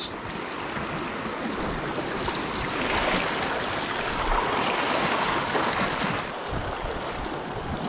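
Ocean waves washing ashore, one surge building about three seconds in and falling away after about six seconds.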